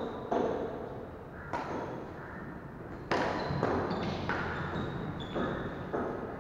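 Badminton rackets striking a shuttlecock in a rally, a sharp hit about every second, each echoing in a large hall.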